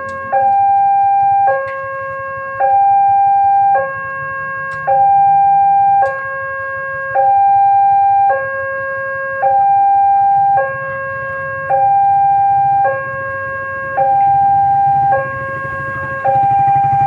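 Electronic railway level-crossing warning siren sounding a two-tone hi-lo wail, a higher and a lower note alternating about once a second, the higher note louder. A low rumble grows under it near the end.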